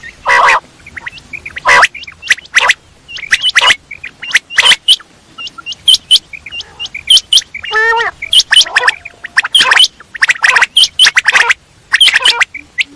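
Quail calling: a rapid, irregular run of sharp, high chirps, some in tight clusters, with a short, lower rattling call about eight seconds in.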